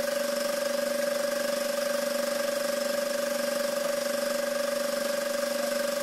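A steady hum at one fixed pitch, with a few fainter fixed overtones above it and no change in level.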